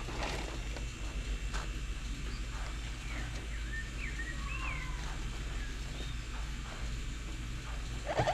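Birds chirping: several short whistled calls that slide up and down in pitch, over a steady low rumble with a few light clicks.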